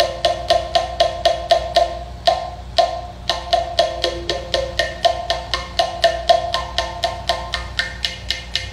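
Mouth bow being played: the string plucked in a steady rhythm of about four to five plucks a second, over a held drone, with the mouth shifting the resonance to pick out a changing overtone melody.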